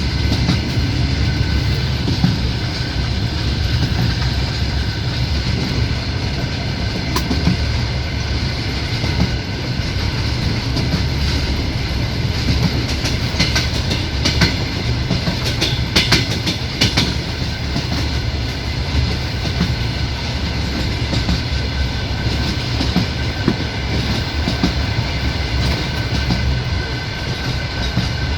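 Passenger train running at speed, heard from inside a carriage at the window: a steady rumble with the clickety-clack of the wheels over the rail joints. There is a cluster of sharper clicks about halfway through.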